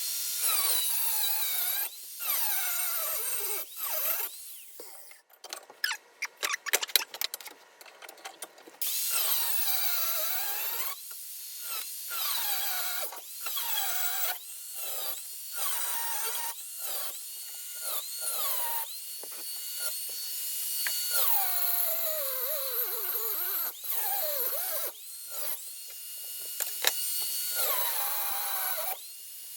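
Electric power tool cutting steel knife blanks held in a vise. It runs in repeated spells, its whine dropping in pitch as it bites into the steel and rising again when it runs free. A run of sharp clicks and clanks comes about six to nine seconds in.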